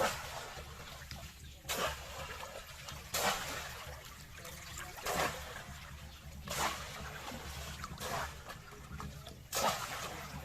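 Shallow pond water splashing in a regular rhythm, about seven strokes roughly a second and a half apart, as hands work through the water and mud.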